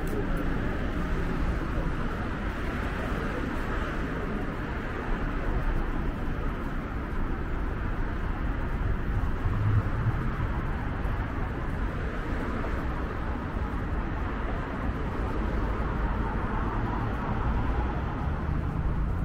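Busy city street ambience: a steady wash of road traffic with people talking among it.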